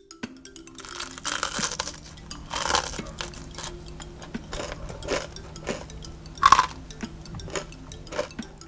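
Crunching bites into crispy battered potato fries, several loud irregular crunches with chewing between, over light mallet-percussion background music.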